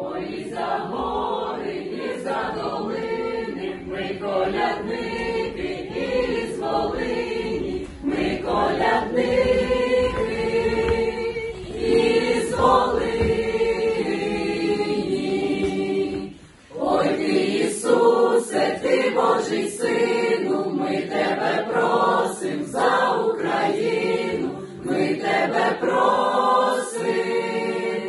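Mixed choir of young men and women singing a Christmas carol together, with a short break between phrases about two-thirds of the way through.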